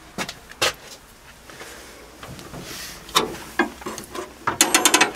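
Hand tools and metal parts clicking and knocking under a car's bonnet during work on the wiper linkage. The clicks are scattered at first and come as a quick run of about eight near the end.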